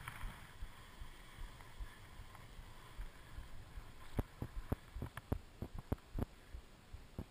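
Skis sliding over packed snow, a soft rushing noise; from about four seconds in, a run of sharp clicks and knocks, a few a second.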